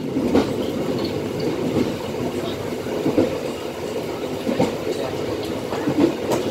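Train running along the track at speed, heard from inside the cab at the end of the train: a steady rumble of wheels on rail with a few irregular knocks.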